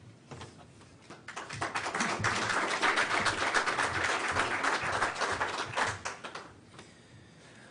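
Audience applauding. The clapping swells about a second in, holds, and dies away near the end.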